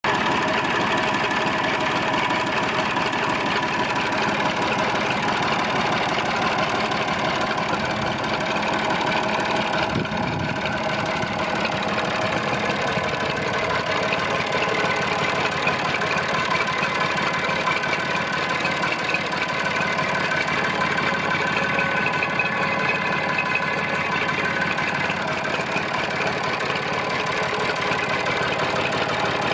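Massey Ferguson 250 tractor's three-cylinder Perkins diesel engine idling steadily.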